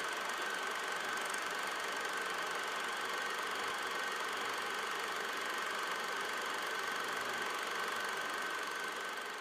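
Steady, noisy synthesizer drone from a stage keyboard, with a faint high tone held throughout and no beat; it fades out near the end.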